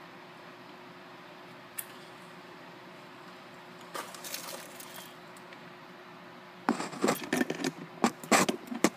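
Small metal hardware being handled: after a quiet stretch with a single click, a quick run of sharp clinks and rattles starts near the end, like screws and tool parts knocking together.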